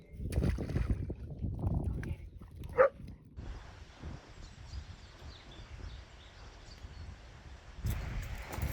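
Outdoor riverside ambience: a steady rush of flowing river water with faint bird chirps over it. Wind buffets the microphone in the first few seconds and again near the end, and a short, sharp squeak-like animal call sounds about three seconds in.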